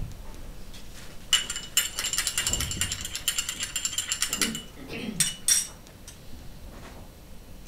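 Rapid mechanical ratcheting clicks, about eight a second with a steady high ring, lasting about three seconds, then two single clicks.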